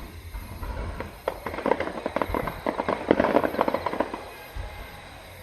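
Fireworks crackling: a dense, rapid run of small sharp pops starts about a second in, peaks in the middle and thins out past four seconds.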